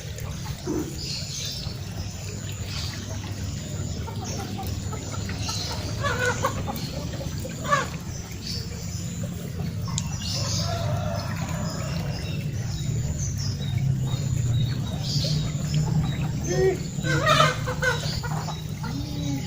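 Chickens clucking now and then, with several short calls scattered through, over a steady low background rush.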